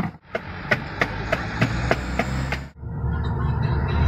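Sharp clicks and knocks of ice chunks going into plastic cups, about three or four a second, which cut off suddenly. Near the end a low rumble of a passing vehicle builds up.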